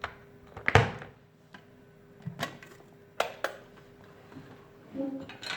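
An electric kettle being handled: scattered clicks and light knocks of its plastic parts, the loudest about three-quarters of a second in.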